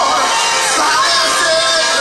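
Live gospel worship singing through the church sound system: voices hold long, wavering notes over amplified music, with the congregation's voices mixed in.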